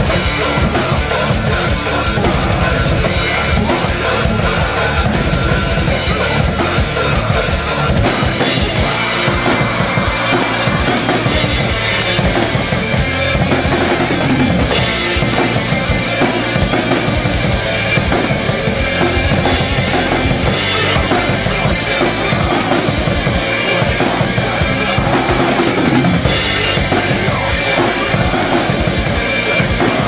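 Acoustic drum kit played in a fast metal groove: rapid double bass drum under snare hits and ringing cymbals. About eight seconds in, the bass drum pattern becomes less continuous.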